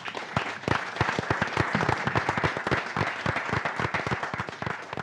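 Audience applauding: a dense patter of many hands clapping that builds up over the first second and then holds steady.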